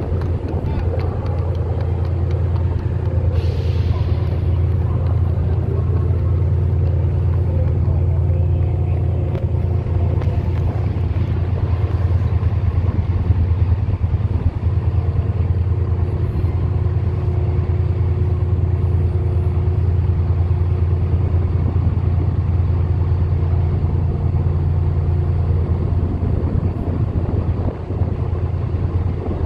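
Diesel multiple unit engines idling in a station: a steady low drone with a few steady tones above it. A brief hiss comes about three and a half seconds in.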